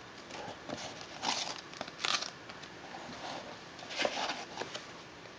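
Small plastic bag and paper instruction leaflet rustling and crinkling as they are handled, in a few short bursts.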